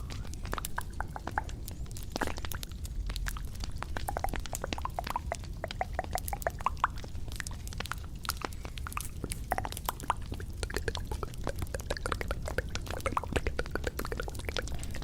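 Close-miked ASMR trigger sounds: a steady stream of small clicks and short wet, drip-like ticks.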